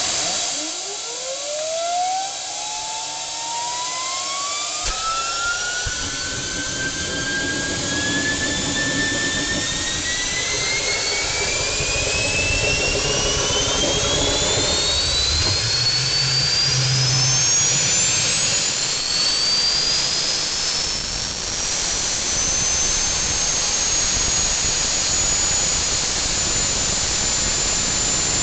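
Home-built gas turbine made from a Holset turbocharger, starting and spooling up with a loud rushing noise. Its compressor whine climbs steadily from low to very high over about 25 seconds, then levels off into a steady high whine as the turbine settles at idle near the end.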